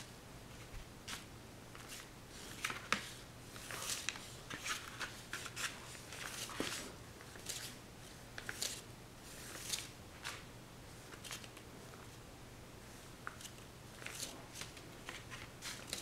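Paintbrush strokes on paper: short, irregular scratchy swishes, busiest in the first half, over a faint steady electrical hum.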